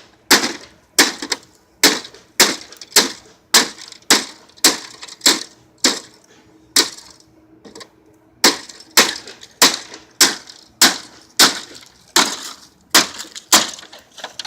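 Repeated blows struck on a broken air conditioner as it is smashed, about two a second, with a short pause about halfway through.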